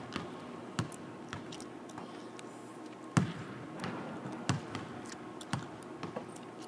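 Basketballs bouncing on a hardwood court: several irregularly spaced thuds, the loudest just over three seconds in, echoing in a large empty arena.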